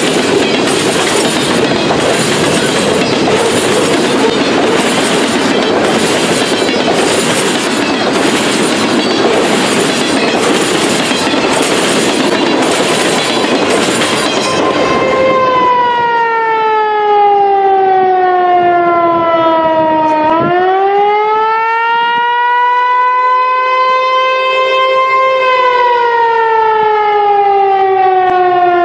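Freight cars of a CN mixed freight train rolling past with a loud rumble and a regular clack of wheels over rail joints about once a second, which stops about halfway through. An outdoor warning siren then wails, its pitch sliding slowly down, rising sharply, holding, and falling again.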